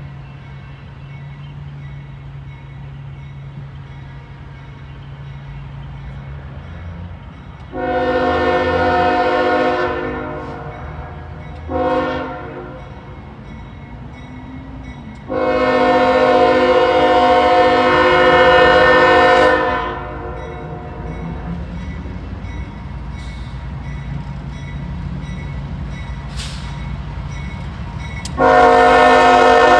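Locomotive air horn on a CSX CM44AC-led freight train sounding four blasts: a long one, a short one, another long one, and a last long one starting near the end. A steady diesel locomotive rumble runs underneath.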